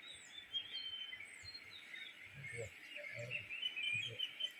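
Several wild birds chirping and twittering, with short high whistles that slide downward, over a steady outdoor hiss.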